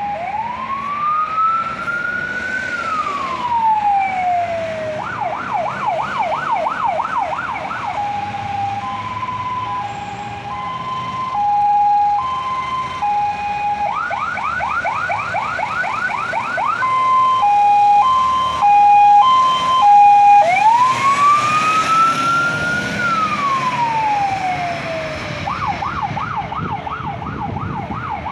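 Fire engine's electronic siren cycling through its tones: a slow wail that rises and falls, a fast yelp, and a two-tone hi-lo. The sequence repeats, and the siren is loudest about two-thirds of the way through as the truck passes.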